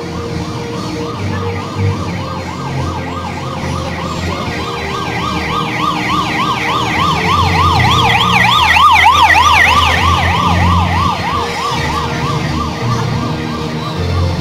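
Motorcycle siren sounding a fast yelp, its pitch sweeping up and down several times a second, growing louder as the motorcycle approaches, loudest as it passes about eight to nine seconds in, then fading.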